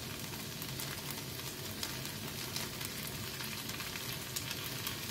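Vegetable flakes, noodle water and instant jjajang sauce sizzling in a frying pan over a high gas flame: a steady hiss with scattered small crackles.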